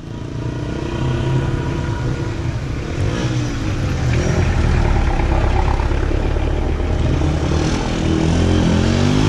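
A motor vehicle's engine running steadily, its pitch rising and falling near the end.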